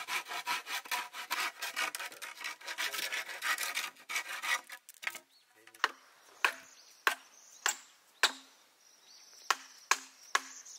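A hand saw cuts through a green bamboo pole in quick, even strokes for about four seconds. Then a hammer strikes the back of a hatchet blade set into the upright bamboo to split it lengthwise: five sharp knocks with a short hollow ring, a pause, and three more.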